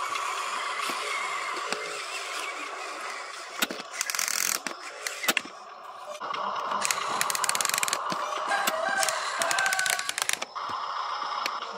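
Electric motor and gearbox of a Huina RC dump truck whining as it drives over dirt, with bursts of rapid clicking and crackling about four seconds in and again from about seven to ten seconds.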